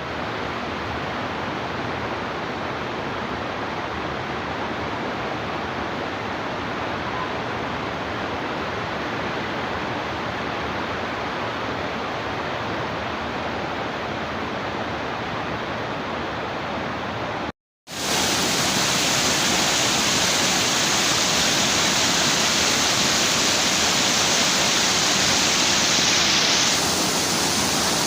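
Waterfall pouring steadily into its pool, a constant rush of water. After a brief cut about two-thirds of the way through, the rush comes back louder and hissier.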